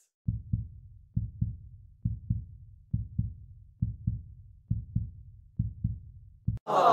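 Heartbeat sound effect: low double thumps in a lub-dub pattern, repeating about once a second, eight beats in all.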